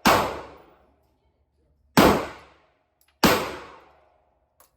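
Three gunshots at uneven intervals: one at the start, one about two seconds in and one about a second later. Each is a sharp crack followed by a ringing echo that dies away over most of a second. A faint click comes near the end.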